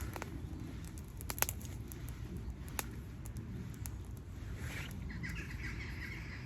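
Small wood fire crackling, with scattered sharp pops over a steady low rumble. A bird chirps about five seconds in.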